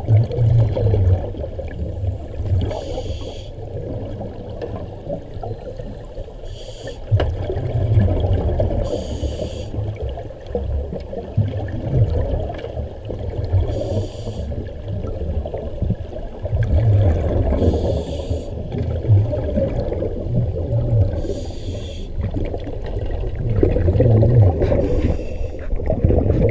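Scuba diver breathing through a regulator underwater: short bubbling exhalations come about every two to five seconds over a low, steady underwater rumble.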